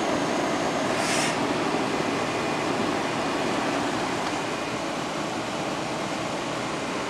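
2000 Mazda MPV's 2.5-litre Duratec V6 at a fast idle just after a cold start, heard from inside the cabin as a steady run. A brief hiss comes about a second in.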